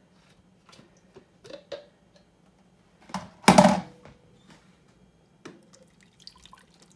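Light knocks and clicks from handling a plastic Ninja blender cup, with one louder half-second shake a little past halfway as broth is shaken in it to rinse out the last of the sauce.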